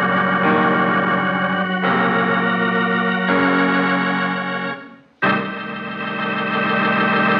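Dramatic organ music sting of sustained chords. The chord shifts twice, fades out about five seconds in, then a new loud chord comes in and holds.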